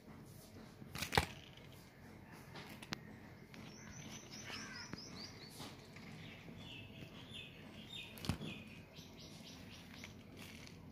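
Birds chirping in the background in quick repeated runs of short high notes. Two sharp knocks stand out, the louder about a second in and another about eight seconds in.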